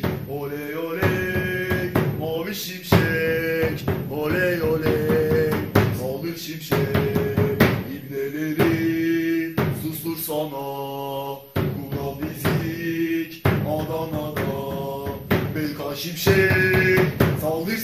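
A football supporters' chant sung by male voices over a drum beat, in held, repeating phrases.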